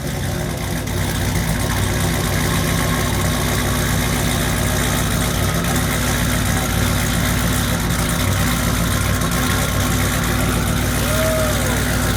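Twin-turbocharged Jeep Grand Cherokee SRT's 6.4-litre HEMI V8 idling loud and steady, seconds after a cold start.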